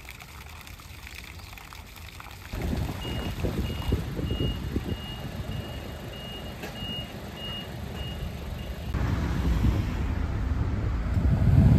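Street ambience with a steady high electronic beep repeating about twice a second for about six seconds, the kind of alert a reversing vehicle gives. After it stops, a heavier low rumble of traffic and wind on the microphone takes over.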